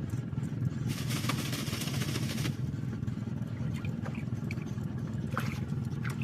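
A boat's engine running steadily as a low drone, with a short hissing rush of noise about a second in.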